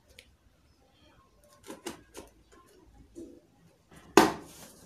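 Cardboard box being cut open with a knife: a few short scratchy scrapes, then about four seconds in a loud rip as the cardboard is torn open.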